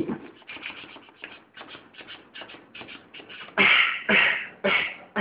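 Beatboxing: a fast run of short mouth clicks and hisses, then, about three and a half seconds in, a few louder, longer hits.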